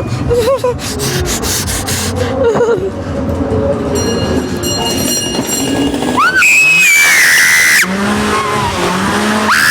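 Ghost-train car rumbling and clattering along its track, then a girl's high-pitched scream about six seconds in, held for over a second, followed by more voice sounds.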